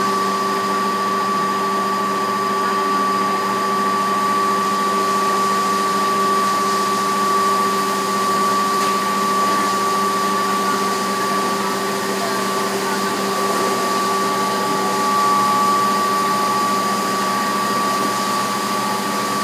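Plastic film granulating machine running steadily, its large electric motor and drive giving an unbroken whirring whine with a few steady held tones over the machinery noise.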